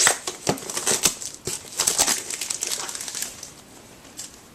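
Cardboard packaging and a stack of trading cards being handled: irregular rustling, crinkling and light clicks, thinning out near the end.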